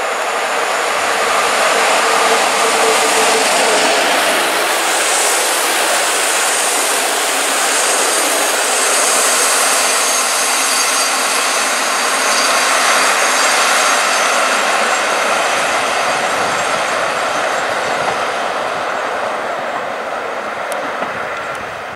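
Passenger train hauled by an EU07 electric locomotive passing through a station at speed: a loud, steady rush of wheels on rail as the locomotive and a long rake of coaches go by, easing off near the end as the train draws away.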